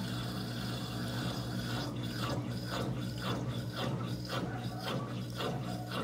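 Colormaq top-loading washing machine starting its spin cycle: a steady low motor hum under a mechanical rasping that repeats roughly twice a second, with some water sound.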